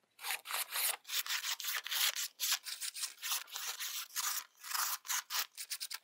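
A sharp hand-made slip joint folding knife slicing paper in the paper test: a quick run of short, papery slicing strokes, about three or four a second, as thin strips are shaved off the sheet.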